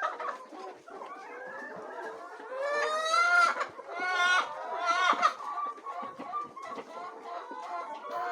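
A flock of laying hens clucking and calling over one another, with two louder drawn-out calls about three and four seconds in.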